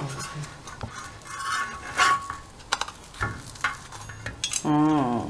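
Steel spatula scraping and knocking against a griddle pan as toasting bread slices are turned, in a handful of sharp separate scrapes and clinks. A voice speaks briefly near the end.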